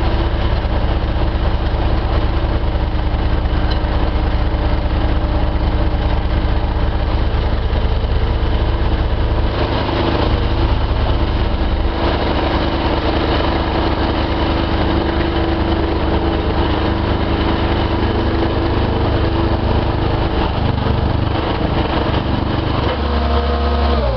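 Kent KHP65 hydraulic plate compactor running, a fast steady vibrating drone over the machine's engine, with the low tones shifting near the end.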